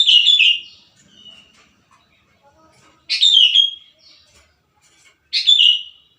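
Sooty-headed bulbul (kutilang) singing: three short phrases of quick notes a few seconds apart, each falling in pitch toward its end.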